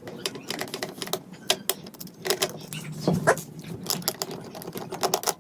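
Irregular small clicks, taps and rattles of plastic and metal parts being handled while an alarm clock's light assembly is taken apart.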